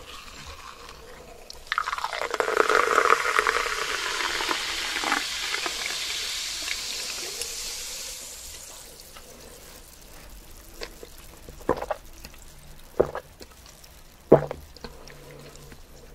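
Liquid being poured for about seven seconds, starting sharply and fading out slowly. A few short sharp clicks follow near the end.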